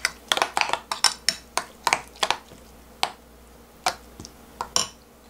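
A spoon clinks and scrapes against a glass mixing bowl while stirring a thick chili-paste marinade. The clinks are irregular: quick and frequent for the first two and a half seconds, then a few scattered ones.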